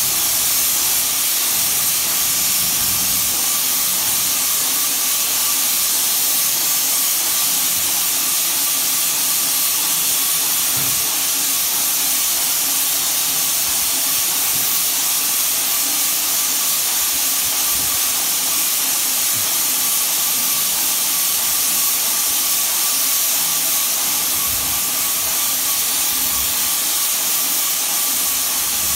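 Graco Mark V airless sprayer's spray gun hissing steadily as it atomises finish compound for a level five drywall finish, with a faint steady whine underneath.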